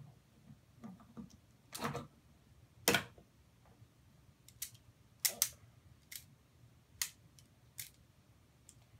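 Plastic magnet blocks clicking and clacking together as they are handled, snapped and stacked: a scattered run of sharp clicks at uneven intervals, roughly one a second.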